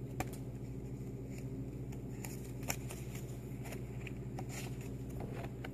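Index cards being handled and shuffled, with light rustles and clicks and two sharper taps, one just after the start and one about halfway through, over a steady low hum.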